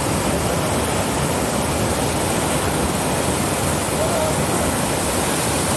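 A small waterfall pouring over a stone wall into a spring pool: a steady rush of falling and splashing water.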